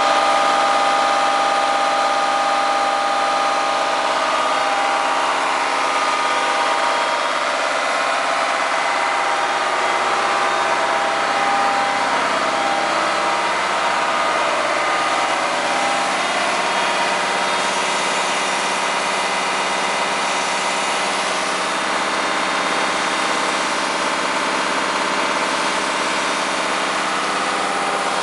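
Hydraulic power pack running steadily, driving a Desmi Terminator oil skimmer: a constant machine drone with several steady whining tones and no change in speed.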